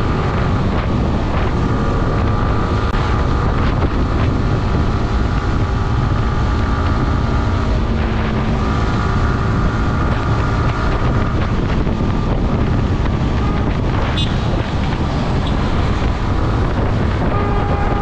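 Wind buffeting the microphone of a moving motorcycle, a steady rush, with the engine and road noise running underneath.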